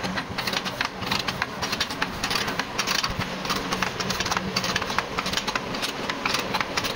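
Lever chain hoist ratcheting as its handle is worked back and forth: a rapid, irregular run of metallic clicks from the pawl while the chain is tightened to pull on the crash-damaged chassis frame. A steady low hum runs underneath.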